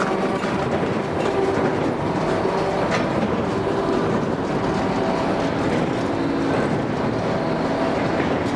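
Claas 3300 big square baler ticking over, its ram and drive arms clattering steadily, running to warm up its gearbox oils.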